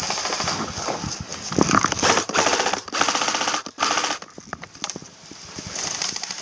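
Airsoft electric gun firing on full auto: two short, fast, rattling bursts in the middle.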